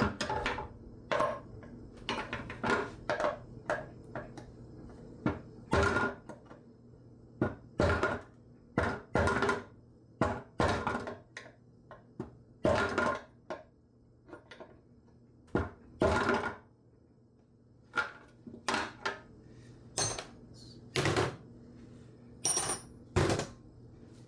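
Hammer blows on a dented sheet-metal oil pan from a Toyota 1HD-T diesel engine, knocking the dents out. The strikes are irregular, often one or two a second, some in quick pairs, each with a short metallic ring, with a pause about halfway through.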